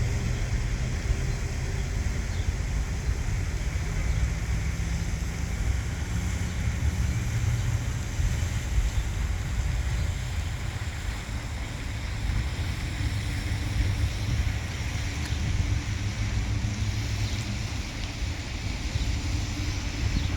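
Steady low rumble of outdoor ambience, with wind buffeting the microphone.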